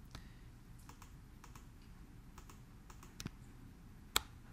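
Computer mouse clicking as components are selected on screen: scattered faint clicks, with two sharper clicks about three and four seconds in.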